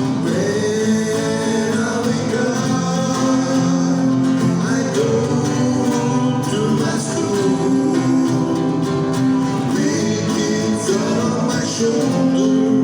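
Acoustic guitar strumming with a voice singing a melody over it.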